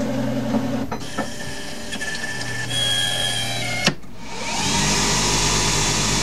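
CNC lathe with a brass hex bar held in a 5C collet: a few mechanical clicks and a short motor whine, then about four seconds in the spindle starts and runs up in a rising whine. It settles into a steady run.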